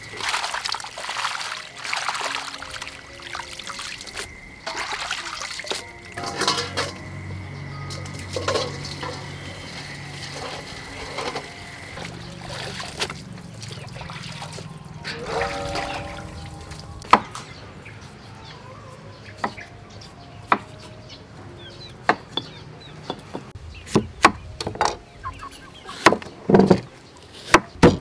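Tap water running and splashing into a metal basin as hands swish water spinach in it. Near the end, sharp knocks start: a pestle pounding chilies in a stone mortar.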